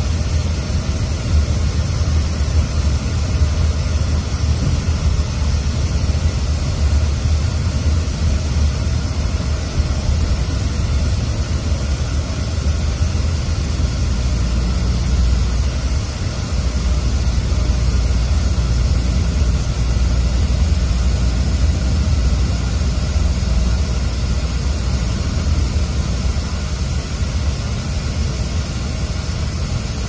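Inside the cabin of a Scania OmniExpress coach at highway speed: the air conditioning blows with a loud, steady rush over the low, even drone of the engine and tyres.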